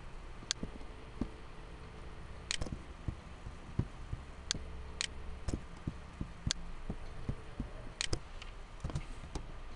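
Scattered clicks and taps of a computer keyboard and mouse, about one sharp click a second at irregular intervals with fainter ones between, over a low steady hum.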